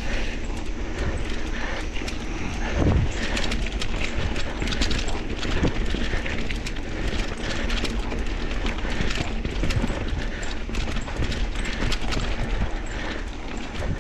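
Mountain bike rolling over a rocky, rooty trail: frame, chain and components rattling and clattering with many sharp knocks over steady tyre and wind rumble.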